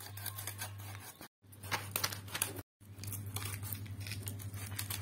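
Tilapia being scaled on an aruvamanai blade: a run of short, irregular rasping scrapes as the fish is drawn against the edge, over a steady low hum. The sound drops out to silence twice, about a second in and again near the middle.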